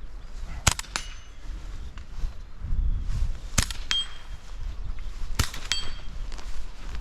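.22 LR rifle firing three shots a couple of seconds apart. Each shot is followed about a third of a second later by a short metallic ring: the bullet hitting a steel target.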